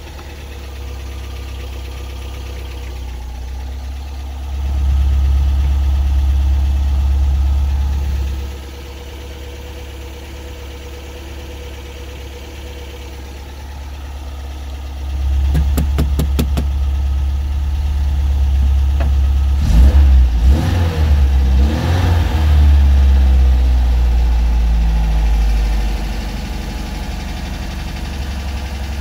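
MGB GT's 1.8-litre B-series four-cylinder engine, warm, idling and revved twice: a short rev about five seconds in and a longer one from about halfway until near the end, with several sharp clicks during the second. Heard from inside the cabin.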